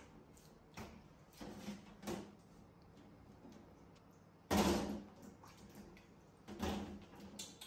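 Kitchen handling noises at a stainless steel sink, plastic bowls and small fruit knocking and scraping. There are a few light knocks early, then two louder, brief clattering bursts, the first about four and a half seconds in and the second near the end.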